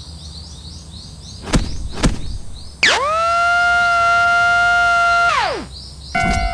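A siren winds up, holds one steady pitch for about two and a half seconds, then winds down. Before it, two sharp knocks sound over a low rumble and repeated high chirps; near the end steady ringing tones start up in repeats.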